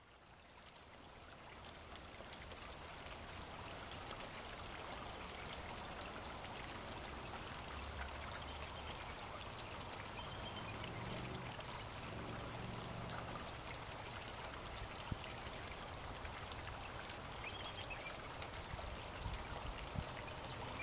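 Steady outdoor ambience: an even rushing hiss that fades in over the first few seconds, with a couple of faint high chirps.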